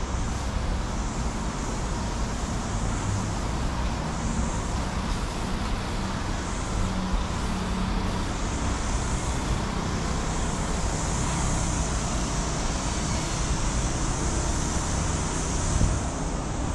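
Steady rumble of road traffic, with a constant high hiss above it.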